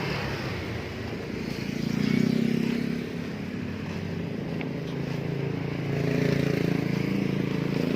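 An engine running steadily, swelling a little about two seconds in and again near the end.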